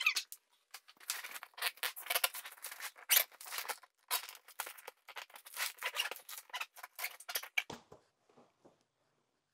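Zipper of an overstuffed hard-sided suitcase being dragged shut in several rasping runs with short stops, strained because the case is packed too full. It ends just under eight seconds in with a soft low thump.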